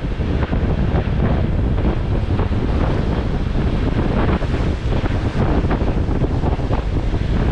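Wind blowing across the microphone: a loud, steady low rumble that flutters irregularly in gusts.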